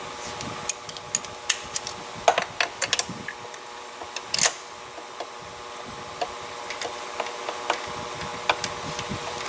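Irregular light clicks and taps of hand tools and small metal parts knocking together while working down a spark plug hole in a car engine bay, over a faint steady hum.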